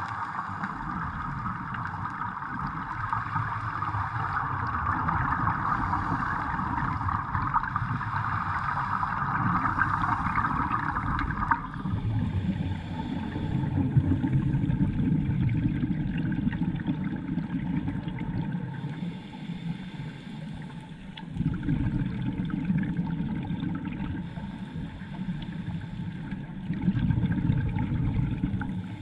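Scuba divers breathing through regulators, heard underwater: low, gurgling rumbles of exhaled bubbles come in bursts every few seconds. A steady hiss runs under the first twelve seconds or so and then stops.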